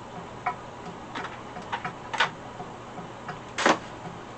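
Light, irregular clicks and taps of a wire whisk against a bowl of sauce, the sharpest a little past three and a half seconds in.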